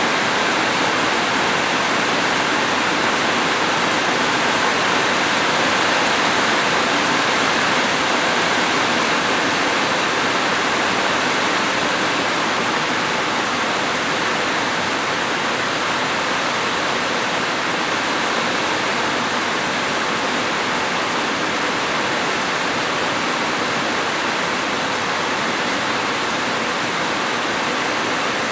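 Steady heavy rain, an even unbroken hiss with no single drops standing out.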